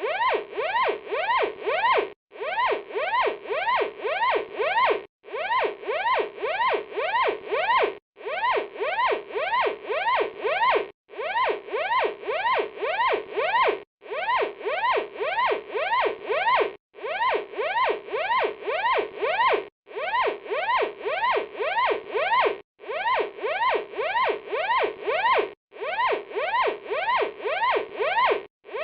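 Electronic fire alarm sounding: a fast rising electronic sweep repeated about three times a second, in bursts of about three seconds broken by short pauses.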